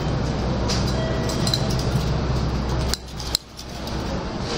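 Busy railway station concourse noise at the ticket gates: a steady low rumble with scattered clinks, clicks and short faint tones. About three seconds in it drops away sharply, with one sharp click, then slowly builds back.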